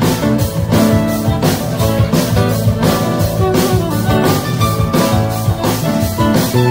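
Live band music: a drum kit keeps a steady beat under plucked string instruments in an instrumental passage.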